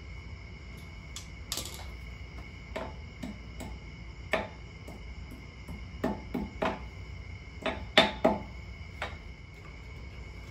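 Sharp metallic clinks and knocks of hand tools working at a truck's front wheel hub: scattered single strikes, then quick clusters, the loudest about eight seconds in. Crickets trill steadily behind.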